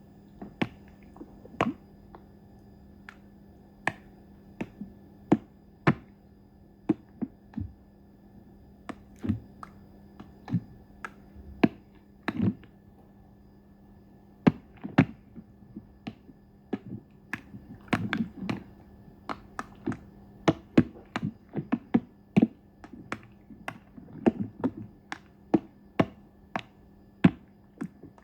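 Water dripping: irregular sharp drops, sometimes alone and sometimes several in quick succession, over a faint steady hum.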